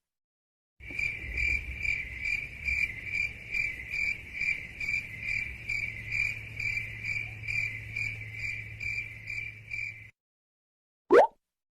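Cricket chirping sound effect, the stock 'awkward silence' gag: a high chirp repeating about twice a second for about nine seconds. A short rising swoosh follows near the end.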